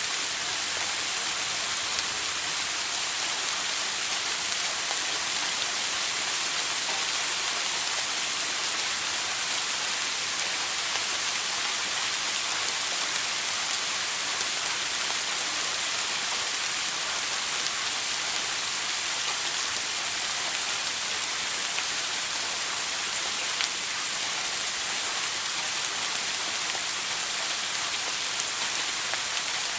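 Shower running: a steady, even hiss of water spray falling, mostly high-pitched, with no change throughout.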